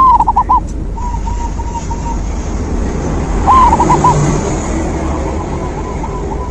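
Zebra dove (perkutut) cooing in short rippling phrases, one right at the start and another about three and a half seconds in, with fainter calls between and near the end. A steady low rumble like distant traffic runs underneath.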